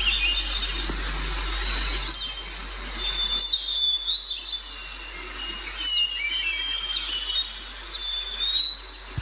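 Birds chirping and whistling in short calls with quick rising and falling notes, over a steady background hiss.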